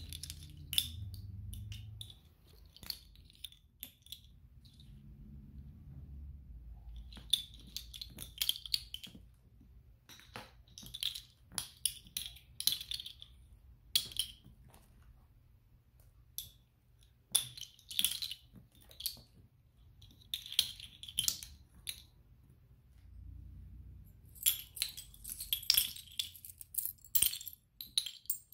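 Plastic water bottle caps dropped by the handful onto carpet, clattering and tapping in several separate bursts. Near the end, fake coins fall among them with a brighter, denser clinking.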